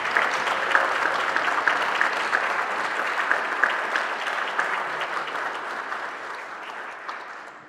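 Audience applauding, a dense clatter of many hands clapping that tapers off over the last couple of seconds.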